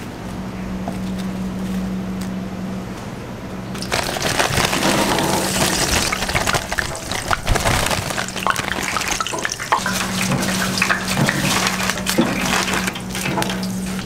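A steady low hum, then from about four seconds in the loud, crackling sizzle of hot oil in a deep fryer as frozen fries are fried.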